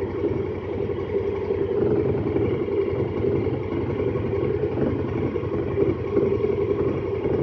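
Honda Pioneer 1000-5 side-by-side's twin-cylinder engine running steadily while driving along a dirt trail, with drivetrain and tyre noise, heard from inside the open cab.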